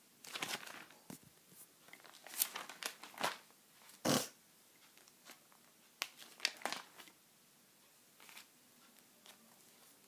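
Clear plastic sheet protectors in a ring binder crinkling and rustling as pages are turned, in several short bursts.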